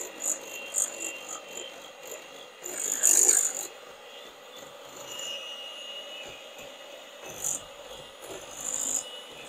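Electric hand mixer running with a steady whine, its beaters churning and scraping against a glass mixing bowl as they cream butter, sugar, brown sugar and eggs, breaking up the brown sugar chunks. The scraping gets louder for a moment about three seconds in and again near the end.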